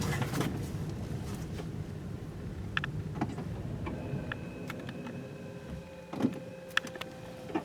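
Car moving slowly with a low, steady rumble in the cabin and a few sharp clicks. About halfway through, a steady motor whine starts and cuts off abruptly near the end.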